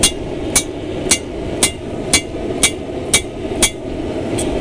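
Hand hammer striking an oil-dipped nail used as a makeshift punch, driving it into a mild steel billet. There are sharp metallic blows, about two a second, nine in all, over a steady rushing noise underneath.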